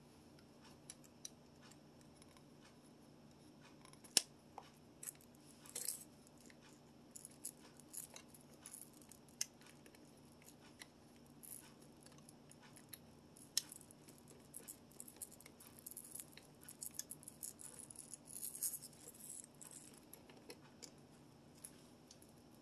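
Faint, irregular clicks, taps and short scrapes of small hard parts being handled, such as a plastic bottle holder and its fittings, over a faint steady hum.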